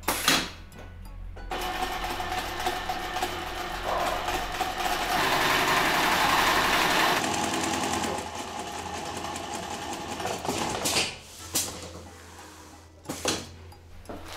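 Industrial single-needle sewing machine stitching along a brocade fabric panel, running fast for several seconds and then stopping. A sharp knock comes right at the start, and a few clicks and knocks follow near the end.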